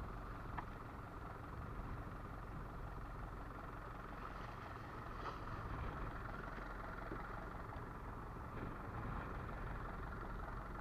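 Fishing boat's engine running steadily, with a couple of faint knocks.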